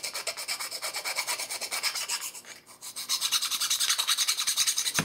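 A large hand file rasping rapidly back and forth across a cut airsoft gun part to flatten the edge. It eases off briefly about halfway, then resumes louder.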